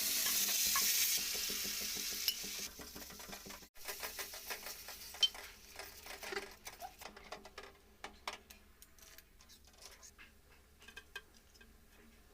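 Kitchen cooking sounds: a steady hiss that stops about three seconds in, then a spoon stirring, scraping and clinking against a pot, with scattered taps that grow fainter.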